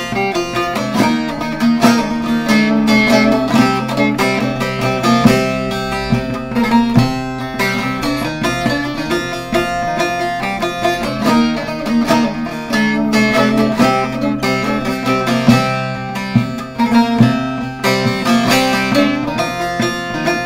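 Short-neck bağlama with a mulberry-wood bowl being played: a Turkish folk piece of quick plucked and strummed notes on its strings.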